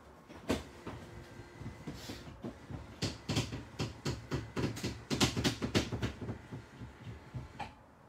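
Electric power bunk lowering from a motorhome ceiling: a faint steady motor hum under a run of clicks and knocks, thickest in the middle.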